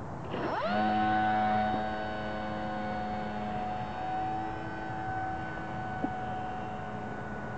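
Brushless electric motor and propeller of a large RC powered glider spooling up fast to full throttle at launch, then running at a steady high-pitched whine. It is loudest for the first couple of seconds, then eases a little and holds steady as the glider climbs away under power.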